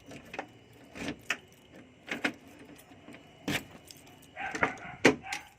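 A bunch of keys jangling and clinking as they are handled, in a string of sharp separate clinks, the loudest about five seconds in.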